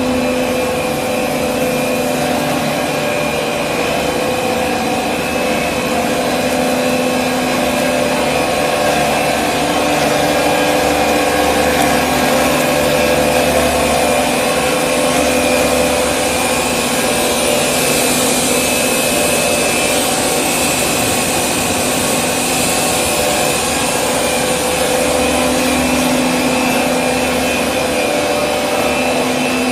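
WT55/75-1250mm automatic stretch film cast line running: a steady machine noise of motors and turning rollers, with a low hum that fades in and out.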